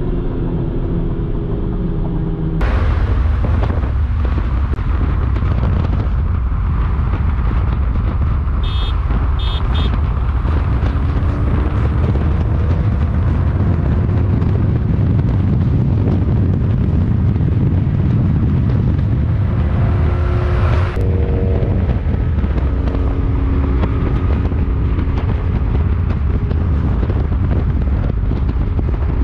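Car cruising at highway speed: loud steady wind rush and road noise with an engine drone underneath, the noise jumping up sharply about three seconds in and easing again near the end.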